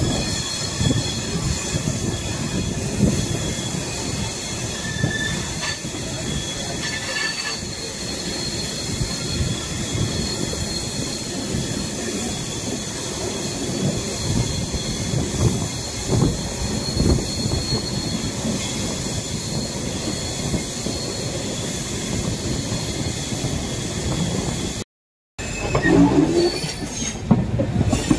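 Running noise of an Indian Railways express train, the 12530 Lucknow–Patliputra Superfast Express, moving at speed: a continuous rumble of wheels on the rails with irregular low knocks. Near the end the sound cuts out for half a second, and after that it is louder and choppier.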